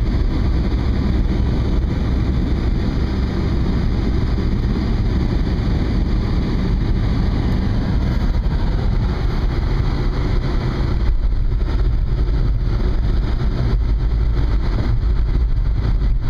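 Car driving at road speed: a steady low rumble of road and wind noise, heard from inside the car.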